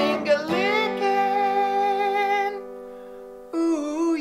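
Sung outro jingle: a voice holds one long note that thins out and fades, then a second held note starts about three and a half seconds in.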